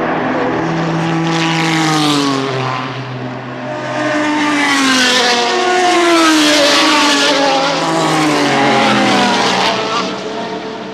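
Group C endurance racing prototypes passing in quick succession at speed. Their engine notes fall in pitch as each car goes by, in three waves, loudest about two-thirds of the way through, then fade near the end.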